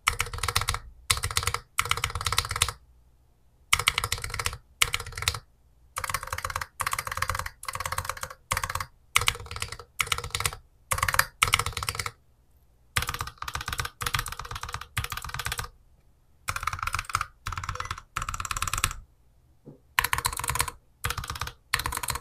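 Typing test on a Keychron Q11 split mechanical keyboard with Gateron G Pro Brown tactile switches: rapid keystroke clatter in short runs with brief pauses between them. The stabilizers are the part the reviewer dislikes in the sound.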